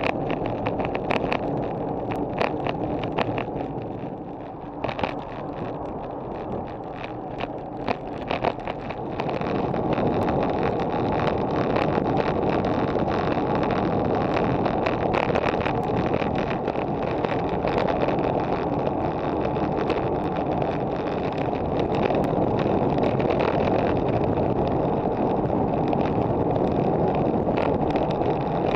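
Wind rushing over an action camera's microphone on a moving road bike, mixed with tyre and road noise and frequent clicks and knocks from bumps. The rush gets louder about ten seconds in.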